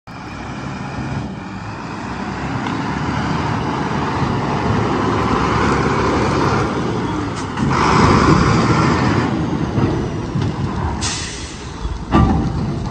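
Heavy diesel truck engine running steadily, with bursts of compressed-air hiss about 8 and 11 seconds in and a short knock just after 12 seconds.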